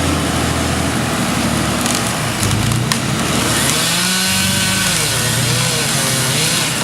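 Chainsaw cutting into a tree trunk, its engine pitch sagging and rising again under load about four to five seconds in.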